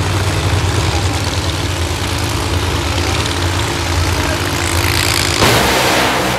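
A Funny Car's supercharged V8 drag engine idling loudly at the start line with a steady deep rumble. About five seconds in it turns suddenly louder and harsher.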